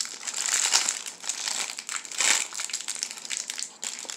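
Shiny black plastic toy wrapper crinkling as it is handled and cut open with scissors. The crackling comes in uneven bursts, loudest about half a second to a second in and again just after two seconds.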